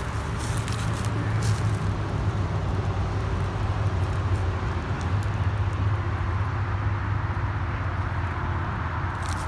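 A steady low rumble, with footsteps crunching through dry leaf litter in the first second or two.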